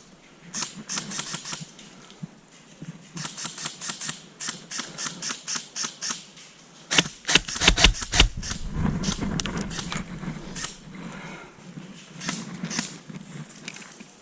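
Airsoft guns firing in several runs of rapid clicking shots, the loudest and heaviest run about seven seconds in, then scattered single shots.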